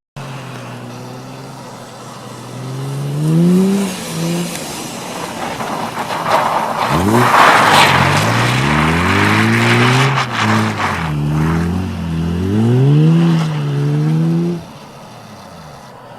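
BMW E36 M3's 3.0-litre straight-six idling, then revved several times with the pitch rising and falling. About seven seconds in it pulls hard with a burst of tyre squeal. After more revving it drops back to idle near the end.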